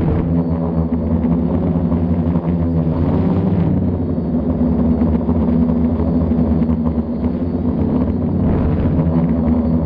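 Tethered quadcopter's electric motors and propellers buzzing steadily in flight, heard close from a camera on the aircraft itself. The pitch wavers slightly as the motors adjust speed.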